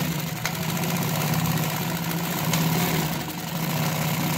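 Consew 226 industrial walking-foot sewing machine, driven by a clutch motor, running steadily as it stitches through layered denim at its longest stitch: a steady motor hum under a fast needle-and-feed rhythm, with a few light clicks.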